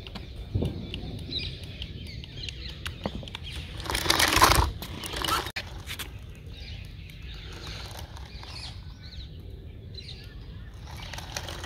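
A toy remote-control stunt car's small electric motors and tyres running over rough concrete, with many small clicks and a louder rush about four seconds in.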